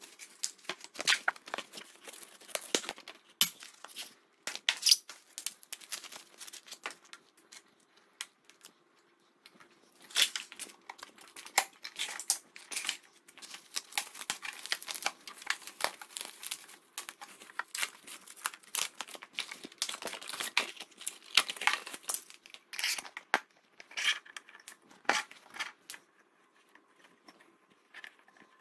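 Plastic wrapping and bubble wrap being torn and pulled off a new electric bike's frame and crumpled, an irregular run of crinkling and crackling with a few short pauses.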